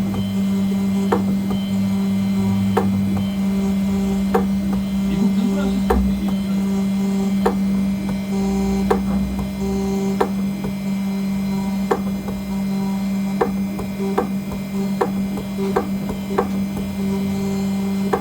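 CNC engraving machine cutting aluminium: a steady low hum with a sharp tick about every second and a half.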